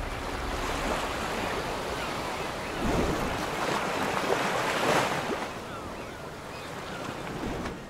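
Waves washing in, a steady rush of water that swells twice, about three and five seconds in.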